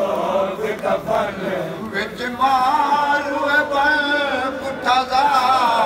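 A noha, the Shia mourning lament, chanted by a male voice in long, wavering held notes.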